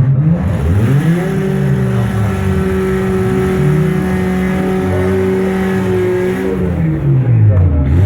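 A car engine revs up about a second in, holds high revs steadily for several seconds, then drops back near the end.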